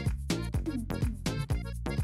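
Upbeat electronic background music with a steady, quick beat.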